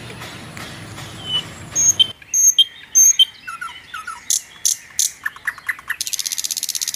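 Small birds chirping, a string of short high calls, with a fast pulsing trill near the end. Under the first two seconds there is a steady outdoor background hiss that cuts off abruptly.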